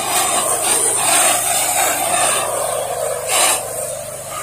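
Low-pressure softwash spray hissing steadily from a wand as the soap mix hits vinyl siding, with a steady low hum of the washing rig running underneath. A brief louder burst of hiss comes about three seconds in.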